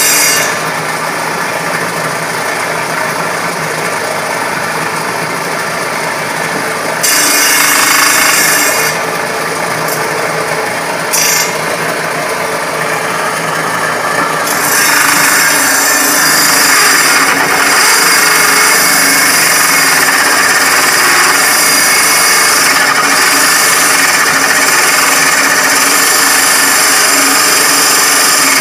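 Homemade table saw running, its blade cutting into a board held on end to form a tenon. The sound gets louder about seven seconds in and again around fifteen seconds in, then holds steady while the blade is in the wood.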